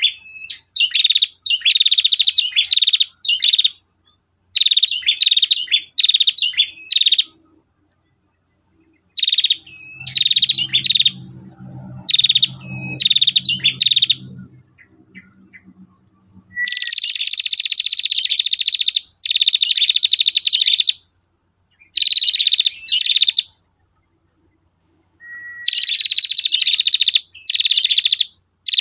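Female prenjak (prinia) giving its buzzy 'tir' trill call over and over, in quick runs of short bursts with brief pauses, the trills running longer, a second or more each, in the second half.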